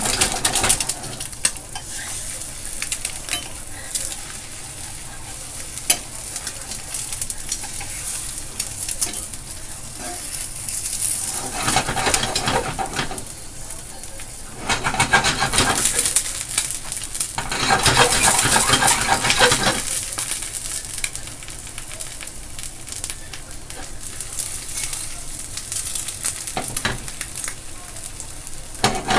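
Two eggs frying in a nonstick frying pan, sizzling steadily. The sizzle swells louder twice in the middle, the longer and louder swell lasting several seconds.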